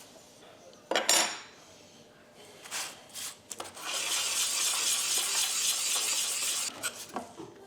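Metal hand-plane parts clanking as they are handled, with one sharp knock about a second in, then a steady high hiss lasting nearly three seconds.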